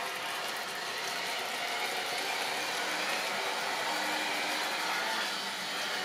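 A long train of OO-gauge model railway wagons rolling along sectional track: a steady rattle and rumble of small wheels over the rails and rail joints.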